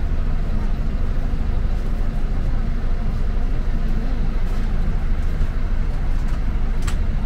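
Bus engine running, a steady low rumble under an even wash of road and engine noise.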